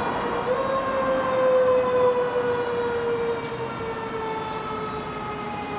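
Fire engine's siren wailing: the pitch climbs right at the start, then holds a long note that slowly slides down over several seconds. Traffic rumbles underneath.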